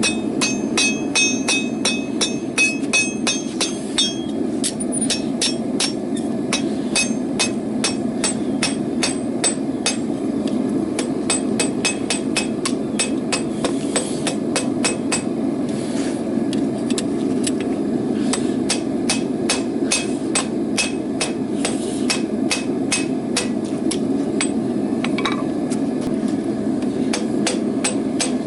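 Blacksmith's hammer striking hot rebar steel on an anvil in a steady run of blows, about two to three a second with a few short pauses, the anvil ringing after the strikes in the first few seconds. A steady low rushing noise runs underneath.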